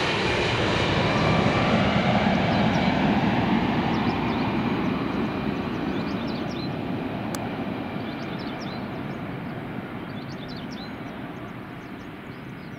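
Boeing 767 airliner's twin jet engines on final approach, a broad rumble loudest about two seconds in, then fading steadily as the plane flies away toward the runway.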